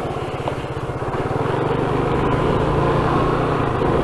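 Yamaha NMAX 155 scooter's single-cylinder four-stroke engine running as it rides at low speed, the engine note swelling slightly about a second in.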